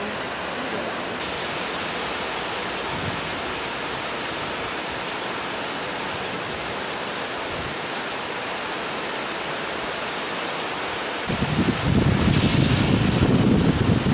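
Steady rushing hiss of surf and wind on an open beach. About eleven seconds in, a much louder low rumble of wind buffeting the microphone sets in.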